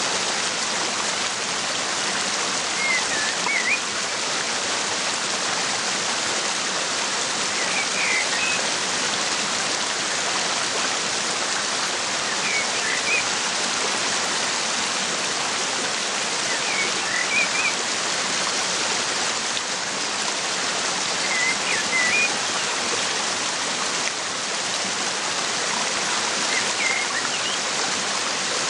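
Steady rushing of a waterfall, with a bird chirping briefly, a few quick notes every four to five seconds.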